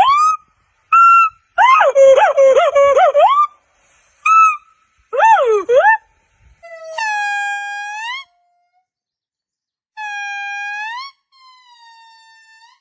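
A series of separate high-pitched monkey calls: short whistle-like chirps, a quick warbling run of rising and falling notes, then longer held calls that turn upward at the end, with silent gaps between them.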